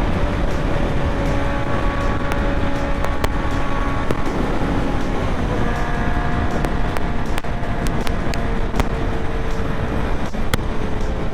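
Honda CB650R's inline-four engine running at road speed, heard under heavy wind rush on the mic; its pitch shifts about halfway through.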